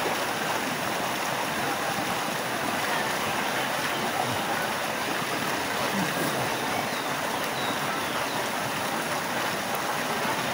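Tubewell water gushing out of the outlet pipe into the concrete tank and churning the pool: a steady rushing of water.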